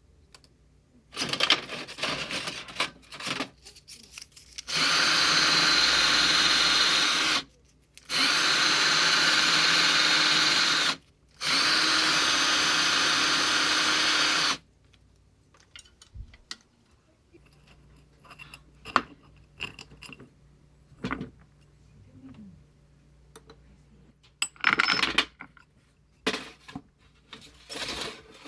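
A handheld power tool running at steady speed in three bursts of about three seconds each, with short pauses between. Before and after, small knocks and clatter of parts and tools being handled.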